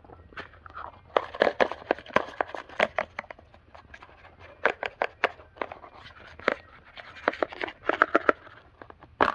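Irregular clicks, taps and light metallic clinks of small parts, such as bearings and tools, being handled and set down on a workbench.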